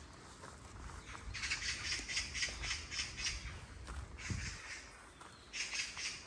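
A bird giving bouts of harsh, rapid chattering calls: one running from about a second in for nearly three seconds, and another starting near the end.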